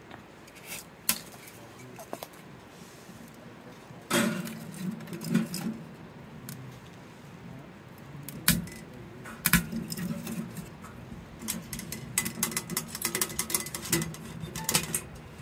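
Split firewood knocking and clattering against other logs and the steel firebox of a small stainless-steel wood stove as it is loaded in, with scattered sharp knocks. Near the end comes a quick run of metal clicks and clinks as the stove's door is handled shut.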